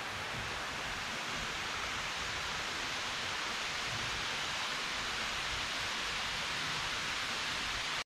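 Steady rush of falling water from a mountain waterfall and its stream, an even hiss with no changes.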